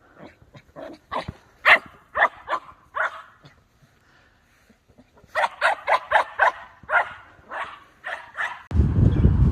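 A dog barking in short, high yips: a run of about six, a pause of a second or two, then a quicker run of about eight. About a second before the end a loud low rumbling noise cuts in.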